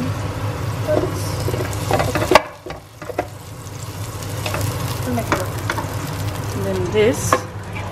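Diced bacon sizzling and frying in oil in a nonstick pan as it is stirred with a wooden spoon, very loud over a steady low hum. A sharp knock about two and a half seconds in is the loudest moment.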